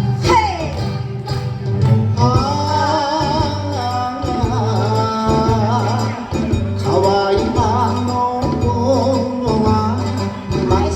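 Recorded Japanese ondo dance song: a sung melody over a steady, pulsing bass beat.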